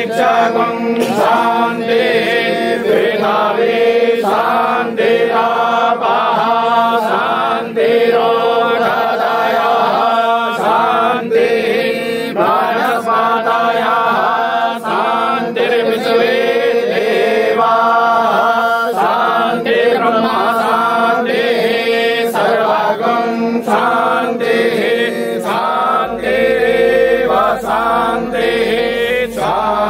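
Vedic mantras being chanted, one continuous sing-song recitation with no break.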